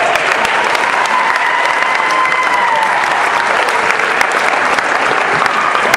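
Crowd clapping and cheering in a gymnasium, with one voice holding a long cheer in the first half.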